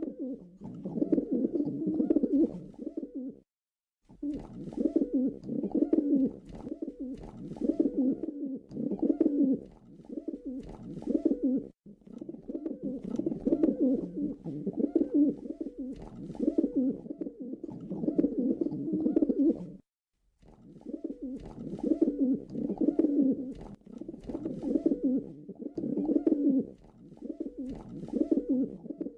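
Pigeon cooing: a long run of low, rolling coos, one after another, broken by short pauses about every eight seconds.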